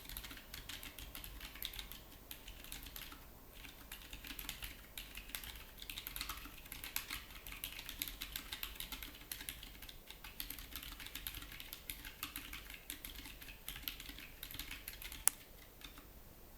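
Continuous fast typing on a Keyboardio Atreus keyboard with Gazzew Boba U4 silent tactile switches (62 g) under Drop MT3 keycaps: many soft, rapid key clicks. The typing stops near the end, after one sharper single click.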